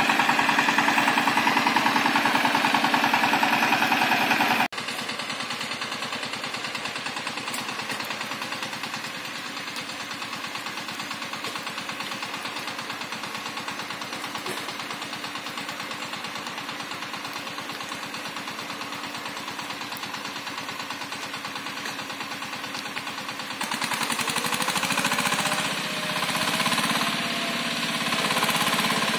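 Power tiller's single-cylinder diesel engine running steadily with a fast, even chugging. It is quieter and farther off after about five seconds, and grows louder again in the last few seconds.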